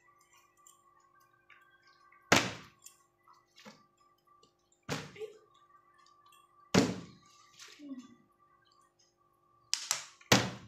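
Plastic bottle being flipped and landing with a thunk, five times at intervals of about two seconds, the last two close together near the end.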